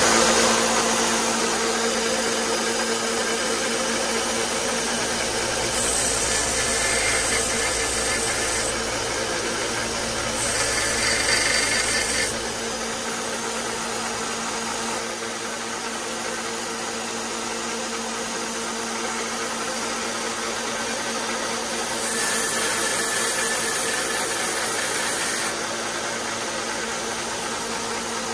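A 1-inch by 30-inch benchtop belt sander starts up and runs with a steady motor hum. Three times, for a few seconds each, the head of a pocket-knife pin is pressed against the belt, adding a higher grinding hiss while it is sanded flush.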